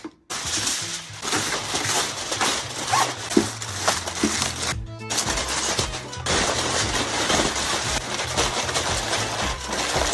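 Background music with steady low bass notes under a dense clatter of rapid clicks and crackles.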